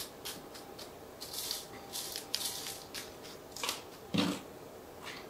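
Hands handling a freshly taken hoya cutting and trimming its stem shorter with pruning clippers: a run of short rustles and sharp clicks, with a soft thump about four seconds in.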